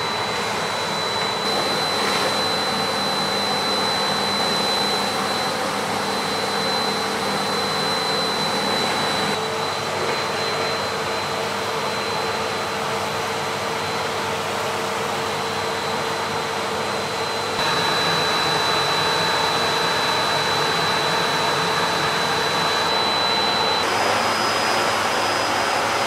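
Bosch BGS21X320 bagless cylinder vacuum cleaner running steadily as its floor nozzle is pushed over a hard laminate floor: a rush of air with a thin high whine over it. A few times the sound shifts abruptly a little in level and pitch.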